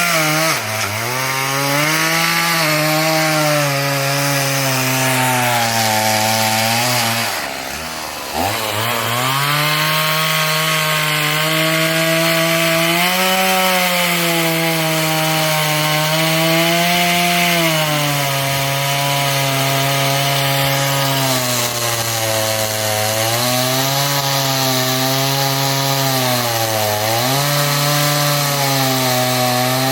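Tekna chainsaw running at high revs while cutting wood, its engine pitch sagging under load and recovering again and again. About seven seconds in, the revs fall sharply and the sound drops for about a second before picking back up.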